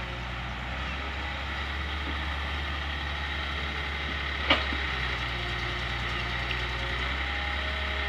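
Diesel engines of an excavator and idling farm tractors running steadily, with a single sharp knock about four and a half seconds in.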